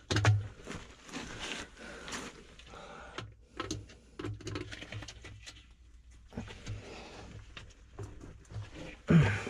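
Hands working a sewer ejector pump's float switch and its cord: an irregular run of clicks, knocks and rustles, with louder knocks at the start and near the end, over a steady low hum.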